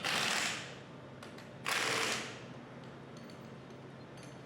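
Ratchet wrench tightening bolts, clicking in two short runs, one at the start and one about a second and a half later.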